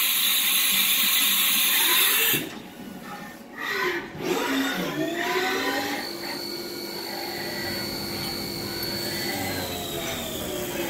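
Haas Mini Mill 2 CNC vertical machining center running. A loud rushing hiss cuts off suddenly about two seconds in. Motor whines then glide up and down in pitch and settle into a steady high whine, which begins to fall near the end.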